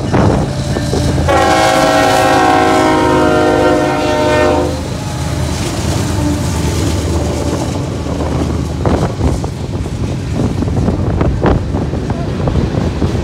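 Diesel freight locomotive's air horn sounding one long blast of about three and a half seconds, over the steady low rumble of the train's engines and wheels on the rails.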